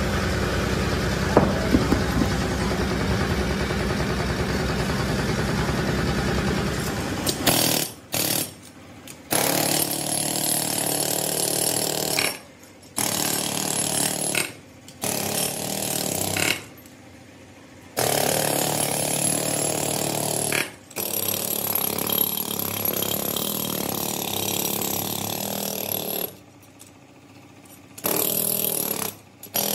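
A pneumatic chipping hammer breaking the sand core out of a freshly cast wheel hub, run in bursts of one to three seconds that start and stop abruptly with short pauses between. For the first several seconds there is instead a steady mechanical noise with a low rumble, which cuts off suddenly.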